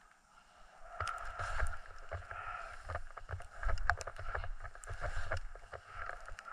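Skis scraping and hissing over packed snow during a downhill run, with uneven scratchy clicks and a low buffeting rumble. It gets louder about a second in.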